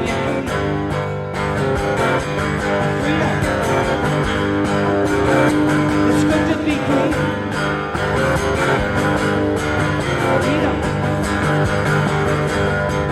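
Live rock concert music on an old cassette tape: an instrumental passage led by guitars, with no singing.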